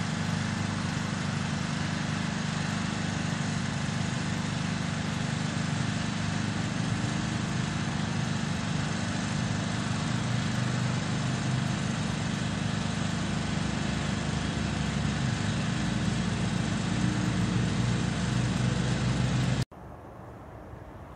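A small engine running steadily and evenly, then cut off abruptly near the end, leaving a quieter steady hiss.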